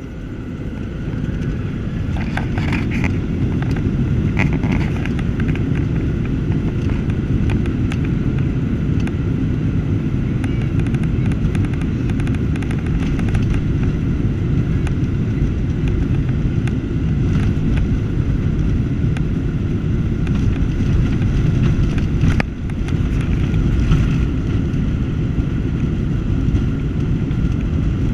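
Cabin sound of a Boeing 737-800's CFM56-7B turbofans spooling up to take-off power over the first few seconds, then a loud, steady rumble as the jet accelerates down the runway. A few short knocks and rattles come through, about two to four seconds in and again past the twenty-second mark.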